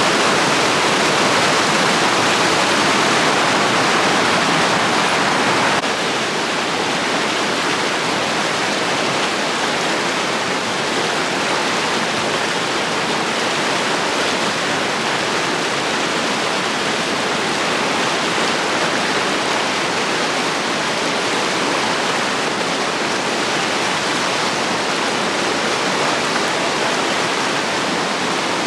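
Mountain river rushing over rocks in a gorge: a steady, loud rush of water that becomes a little softer and less bright about six seconds in.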